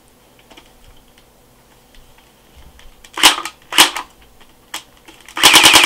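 Crosman Pulse R71 electric airsoft gun (AEG) being test-fired on a NiCd battery: two sharp clacks, then near the end a short rapid burst of about eight shots as the gearbox cycles on full auto, showing the battery works.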